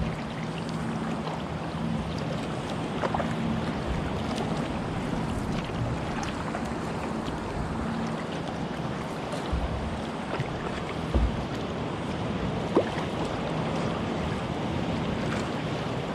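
Sea water sloshing and lapping around a kayak, with wind on the microphone and a low steady hum that comes and goes. A few light clicks and two sharper knocks stand out near the end.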